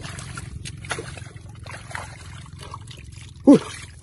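Hands squelching and scooping through wet mud and shallow muddy water, with small splashes and trickles. About three and a half seconds in comes the loudest sound, a brief call that falls steeply in pitch.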